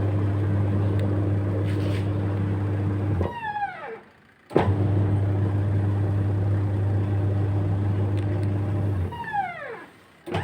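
Washing machine's electric motor running with a steady hum in stretches of about four seconds. Each time it is cut off, it winds down with a falling whine, stays quiet for about a second, then starts again abruptly.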